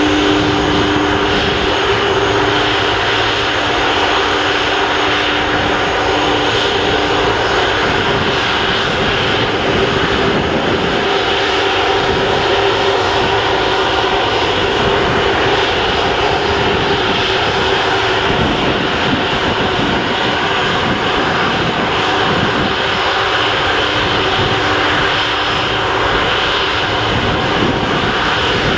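The two Rolls-Royce Trent 700 turbofans of an Airbus A330-243F freighter running steadily at low power on the taxiway: a continuous jet roar with several steady whining tones, one of which fades out about seven seconds in.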